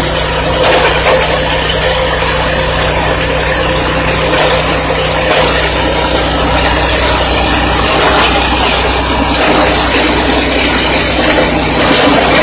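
Multifunction chopper-grinder machine running steadily while grinding dried corn together with its cobs: a loud low drive hum under a dense grinding noise.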